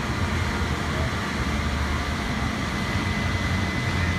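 A fire truck's diesel engine idling, a steady low rumble with a faint steady high tone over it, and some wind noise on the microphone.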